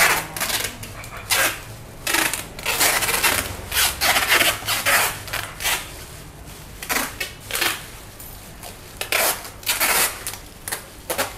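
Clear plastic bags crinkling and rustling in irregular short bursts as dried food is handled and wrapped.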